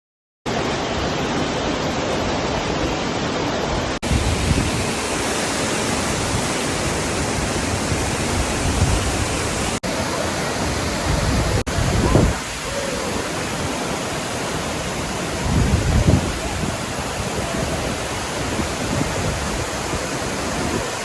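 A large waterfall's steady rush of falling water, a dense even noise, broken briefly by a few sudden cuts, with a few louder low rumbles partway through.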